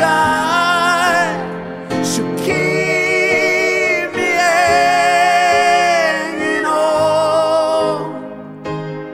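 A slow, sad ballad in which a singer holds long notes with vibrato over sustained backing instruments. The voice drops away near the end.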